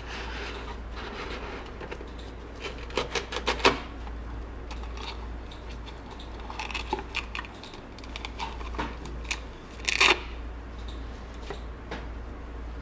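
Gloved hands handling a watch and its cardboard presentation box: a quick run of small clicks and taps about three seconds in, then scattered light rustles. About ten seconds in comes a short, louder rasp, the hook-and-loop fabric strap being pulled open.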